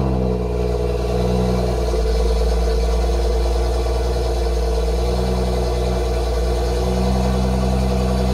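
BMW's turbocharged engine idling steadily just after start-up. It holds a slightly raised idle of around 1,200–1,500 rpm that sags a little. The car has a faulty charge pipe that has put it into limp mode.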